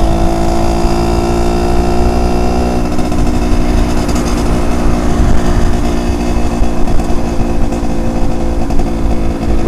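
Yamaha Alfa motorcycle's two-stroke single-cylinder engine running steadily under way on a test ride.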